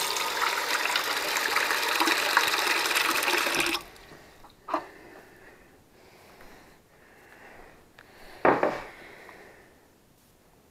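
Kitchen tap running hard into a bowl of salt, filling it with water for a brine, then shut off a little under four seconds in. A click follows about a second later, and a short louder knock near the end.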